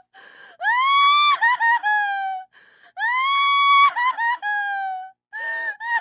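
A woman crying hard: two long, high wails, each rising, held, then breaking into short sobbing catches and trailing down, with gasping in-breaths between them and a third wail starting near the end.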